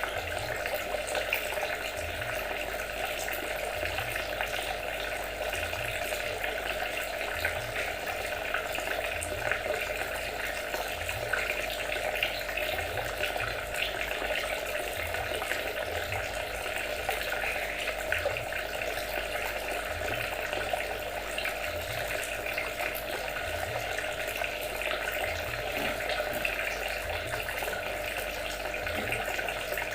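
Trickling water running steadily, a continuous fine splashing and gurgling.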